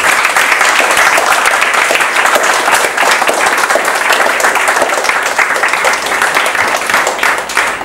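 Audience applauding, a dense patter of clapping that thins out near the end.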